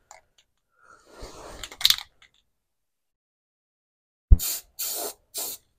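Aerosol can of rust converter spraying in short bursts: a longer spray about a second in, then after a pause a click and three quick spurts near the end.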